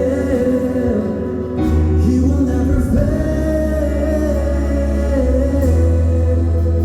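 Church worship music: a band with voices singing long, held lines over a steady bass.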